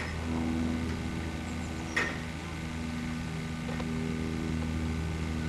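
A steady low engine-like drone runs throughout. About two seconds in there is a single sharp metallic clank, and a fainter knock comes near four seconds, as the aluminium ladder and scaffold tower are handled.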